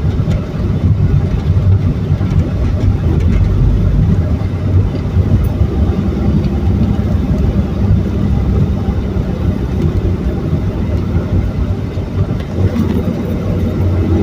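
Steady low rumble of a running vehicle: engine and road noise.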